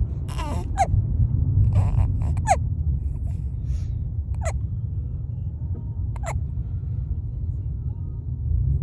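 A person hiccuping four times, roughly every two seconds, each hiccup a short sharp squeak dropping in pitch. Under it runs the steady low rumble of a moving car.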